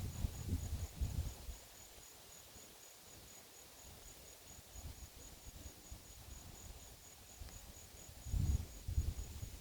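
Insects chirping in a high, even pulse of about three chirps a second. Low gusts of wind buffet the microphone at the start and again near the end.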